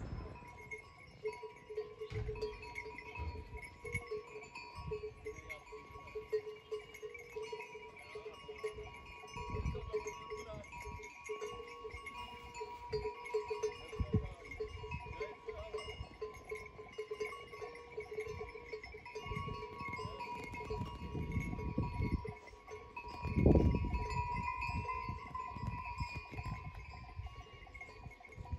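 Flock of sheep wearing bells, many bells jingling together steadily. A low thump about 23 seconds in is the loudest moment.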